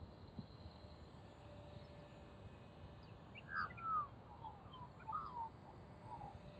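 Australian magpie calling: a short run of warbling, fluting notes that slide up and down. It starts about three seconds in and lasts about three seconds.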